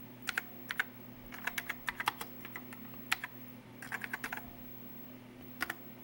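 Keys of a Commodore SX-64 keyboard being typed in irregular little clusters of clicks, with a pause before a last pair near the end, over a steady low hum.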